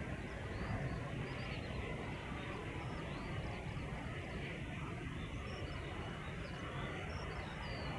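Airbus A330-343's Rolls-Royce Trent 700 jet engines at taxi power, a steady low rumble, with small birds chirping over it. A faint steady whine comes in near the end.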